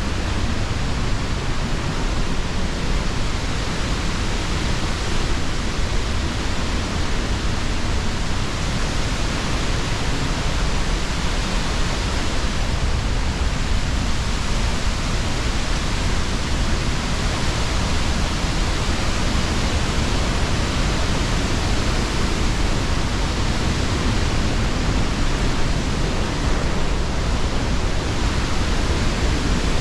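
Steady roar of the Pailón del Diablo waterfall, a loud, even rush of falling water with no breaks.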